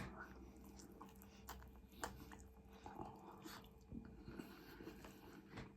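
Faint chewing of a homemade burger: soft, irregular mouth clicks and smacks as the food is chewed.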